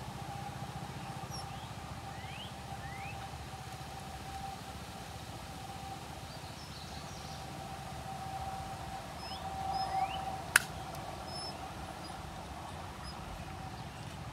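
A single sharp snip of dog nail clippers cutting through a Pomeranian puppy's long nail, about ten seconds in. Under it are a steady faint hum, a low rumble and a few short bird chirps.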